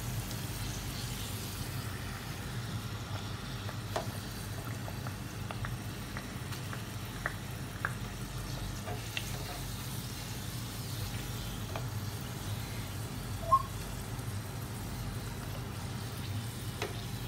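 Potato halves deep-frying in hot oil in a pan: a steady sizzle. A few light utensil clicks come through, with one sharper click about thirteen seconds in.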